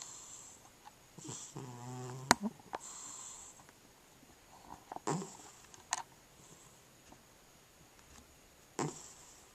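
Cat snoring in its sleep: soft, wheezy breaths every second or two, with one low, rattling snore about two seconds in. A few sharp clicks break in, the loudest just after the snore.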